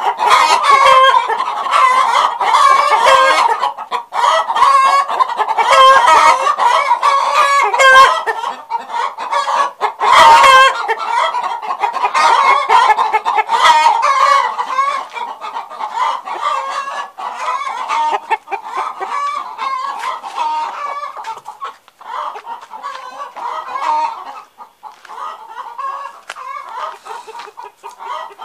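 Chickens clucking and calling continuously, several calls overlapping. The calling is loudest in the first half and a little fainter in the last several seconds.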